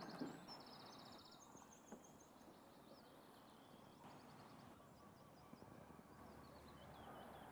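Near silence: faint outdoor ambience with scattered high bird chirps and a brief rapid trill in the first second.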